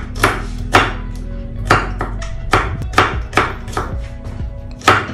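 Chef's knife chopping garlic cloves on a wooden cutting board: a run of sharp, irregular knife strikes, roughly two a second, with background music underneath.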